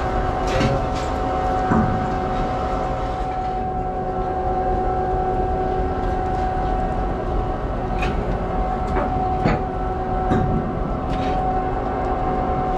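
Ship's anchor windlass running and heaving anchor chain over its wildcat: a steady machinery hum with a constant whine, and the chain links clanking now and then as they seat in the wildcat.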